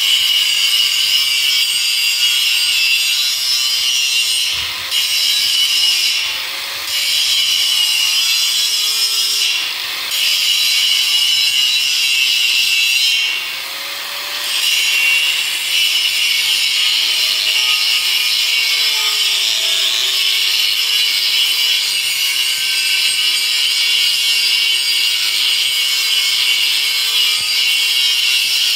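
Electric angle grinder's abrasive disc grinding a rusty steel frame: a loud, continuous high-pitched grind that eases off briefly about four times in the first half as the disc is lifted or shifted, then runs on steadily.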